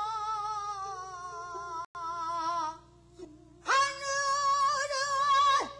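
A woman singing pansori: a long held note with wide vibrato that sinks slowly in pitch, a short pause about three seconds in, then a second held note that ends in a falling slide.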